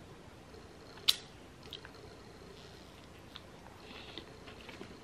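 A crisp Quest tortilla-style protein chip being bitten, with one sharp crunch about a second in, then chewed with a few quieter crunches.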